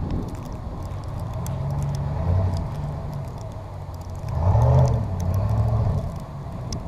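Pickup truck engine running as it tows through snow, with a louder swell about four and a half seconds in.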